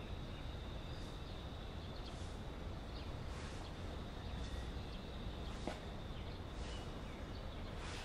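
Outdoor ambience: a steady low rumble with a thin, steady high tone and short hissing pulses repeating about once a second, with a faint click about halfway through.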